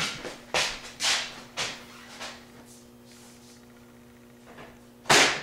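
A few short swishing handling sounds, then a loud sudden bang about five seconds in as a hinged side door of a Cooler Master Cosmos II PC case is swung shut.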